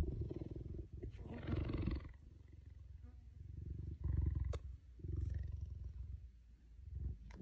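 Cheetah purring: a low rumble that comes in bouts of about a second, with short breaks between them.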